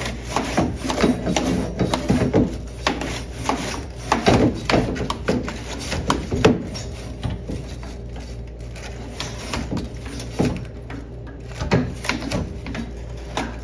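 Broom bristles scrubbing a refrigerator's dust-clogged condenser coil: a run of irregular scratchy strokes, thinning out in the second half, over a steady low hum.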